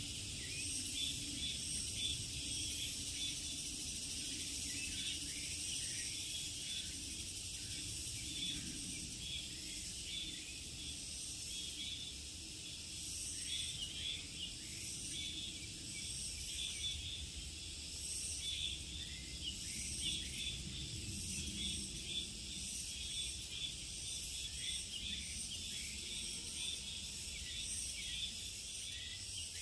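Summer forest insects trilling in a dense, steady chorus, a high shimmer that pulses slightly, over a faint low rumble.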